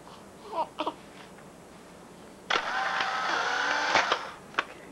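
A small motor whirring for about a second and a half, starting about halfway through, then cutting off.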